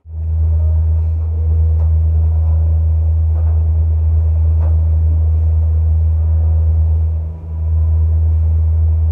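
A loud, steady low hum that starts suddenly and holds one deep pitch, with a brief dip about seven seconds in.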